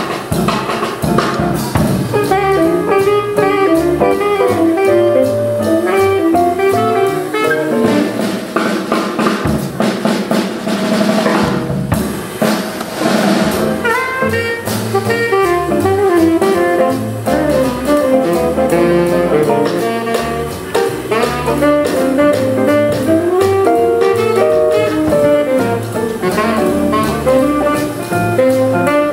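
Live jazz quartet: a tenor saxophone plays a busy melodic line over electric archtop guitar, upright bass and a drum kit.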